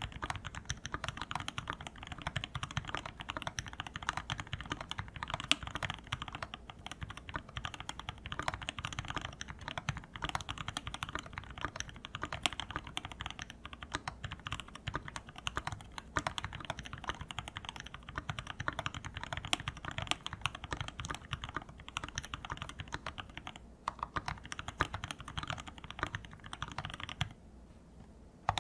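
Continuous fast typing on a Linworks Whale 75 mechanical keyboard fitted with Domikey x iNKY Silent Forest keycaps, a dense run of key clicks with a brief pause a few seconds before the typing stops near the end.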